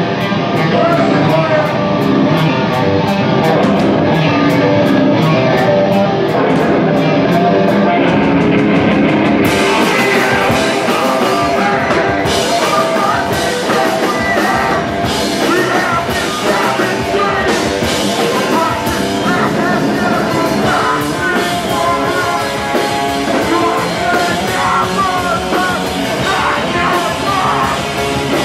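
Live rock band playing: electric guitar and drums with quick cymbal strokes, and the vocalist coming in on the microphone about ten seconds in.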